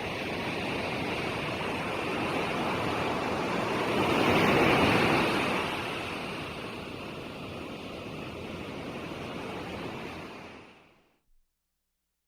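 Ocean waves surging onto the shore, one wave swelling to its loudest about four seconds in before the surf settles again. Near the end the sound fades out to complete silence.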